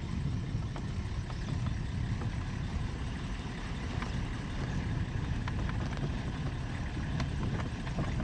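Safari vehicle's engine running, a steady low rumble with occasional light knocks and rattles.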